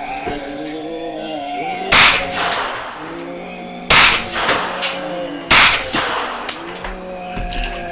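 Hi-Point carbine firing three single shots roughly a second and a half to two seconds apart. Each shot is a loud crack followed by a few fainter cracks.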